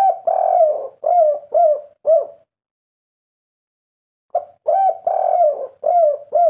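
Spotted dove cooing its song: a short lead note and a long coo, then three short 'kuk' notes. This is the 'kuk 3' song type that keepers prize. The phrase ends about two and a half seconds in, and a new one starts after a pause of about two seconds.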